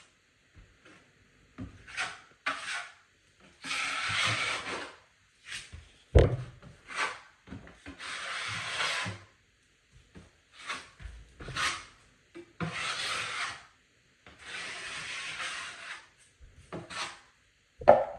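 A tool scraping across drywall in repeated strokes: four longer scrapes of about a second each, with shorter scrapes between them and a sharp knock about six seconds in.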